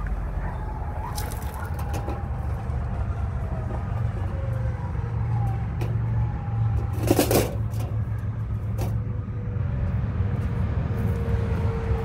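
Steady low rumble of outdoor background noise, with a short burst of noise about seven seconds in.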